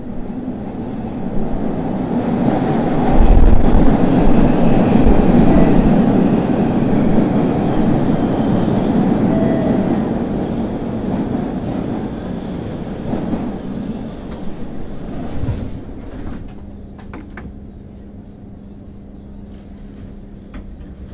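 Running sound of an MBTA Orange Line Hawker Siddeley 01200 series subway car. A loud rumble of wheels on rail builds in the first few seconds, then fades as the train slows, leaving a quieter steady low hum near the end.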